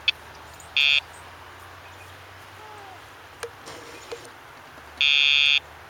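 Electronic buzz from a Dogtra e-pager dog training collar, sounding twice as correction cues to the dog: a short buzz about a second in and a longer one of about half a second near the end.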